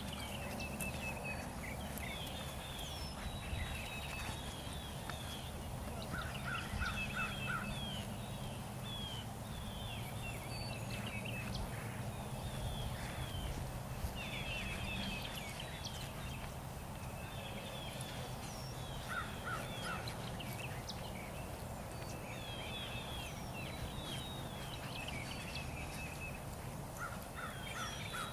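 Birds singing a short chirping phrase that repeats every several seconds over a steady low rumble.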